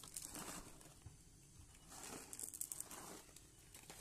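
Plastic pet-food bag crinkling as dry cat kibble is poured out and patters onto a tile floor, in a few short clusters of faint clicks.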